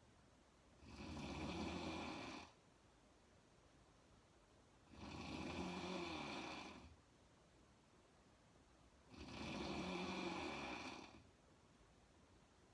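A woman snoring in a slow, even rhythm: three snores about four seconds apart, each lasting close to two seconds, with quiet breathing between them.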